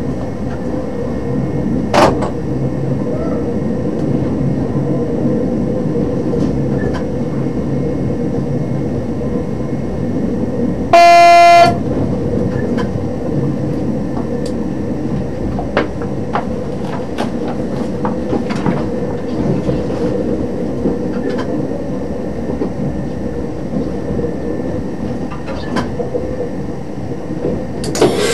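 A DB Class 628 diesel multiple unit running steadily, heard from the driver's cab: steady engine and wheel-on-rail noise with scattered clicks from the track. About eleven seconds in, the train horn sounds one short single-tone blast, the loudest sound; a short loud burst comes right at the end.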